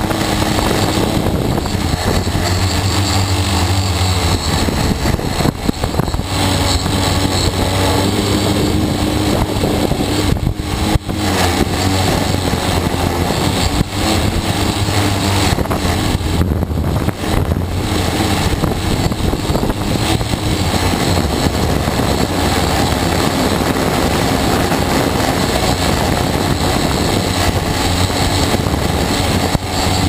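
T580 quadcopter's electric motors and propellers buzzing steadily in flight, heard close up from the camera mounted on its frame. The loudness dips briefly a few times.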